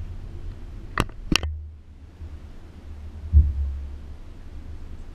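Low, steady rumble of a car driving slowly, heard from inside the cabin, with two sharp clicks about a second in and a single low thump a little past the middle.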